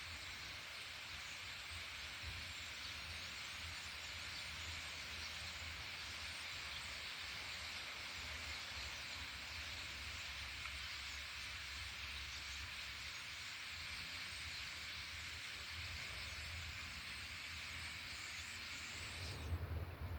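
A large flock of birds chattering all together in a continuous, dense din. Near the end the chatter stops abruptly and a louder low rumble takes over.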